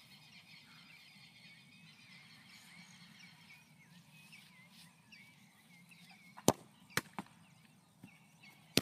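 A football struck during a penalty: a few sharp thuds of the ball being stopped and bouncing, three close together about two-thirds of the way through and another near the end. Birds chirp faintly in the background before them.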